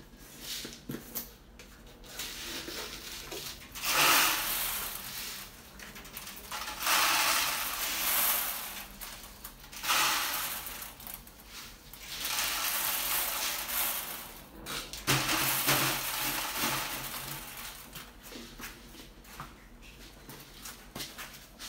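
Dry grain poured in several rushes, rattling down onto the floor of a glass tank.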